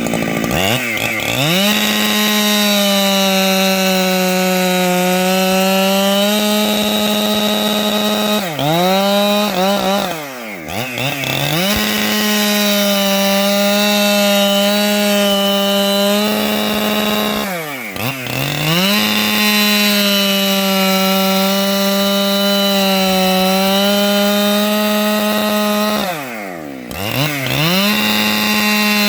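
A 585 XP chainsaw running at high, steady speed while ripping through wood. Four times its engine speed briefly drops and climbs back up, about every eight seconds.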